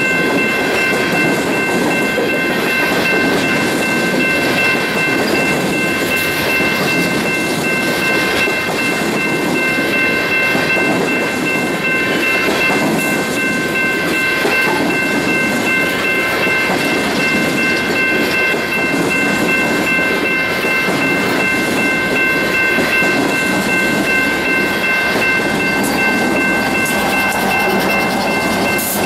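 Empty open-top coal hopper cars of a BNSF freight train rolling past: steady rumble and clatter of steel wheels on rail, with a steady high-pitched whine running through it.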